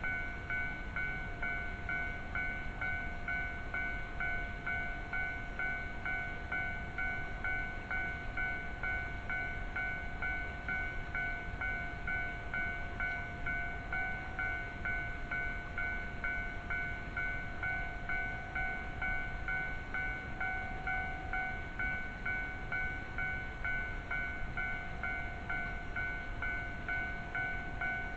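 Japanese railway level-crossing warning bell ringing with a rapid, even, repeating ding, over a low rumble.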